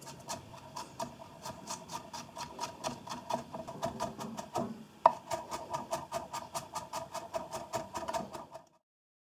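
Kitchen knife rapidly chopping garlic on an end-grain wooden cutting board: even knife strikes against the wood at about four a second. One much louder knock about five seconds in, and the chopping cuts off suddenly near the end.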